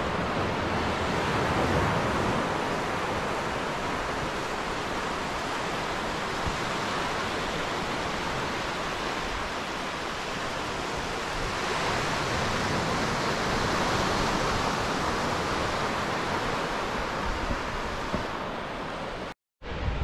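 Small waves breaking and washing up a flat sand beach: a steady rushing hiss that swells and eases as each wash comes in. Near the end the sound cuts out for a moment.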